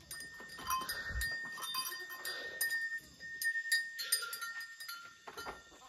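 Goats moving about on a slatted bamboo platform, their hooves making scattered clicks and knocks on the slats.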